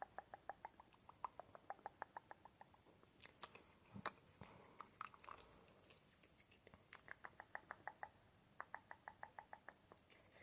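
Close-miked ASMR mouth sounds: rapid, even trains of tongue and lip clicks, about six a second, at the start and again in the second half. In between come scattered, irregular mouth clicks with one sharper, louder click about four seconds in.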